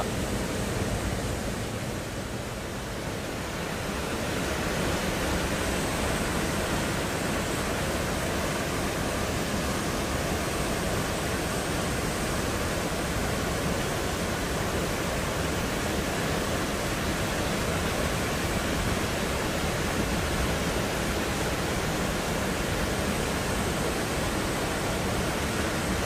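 Small mountain waterfall pouring over rocks into a pool: a steady rushing of falling water.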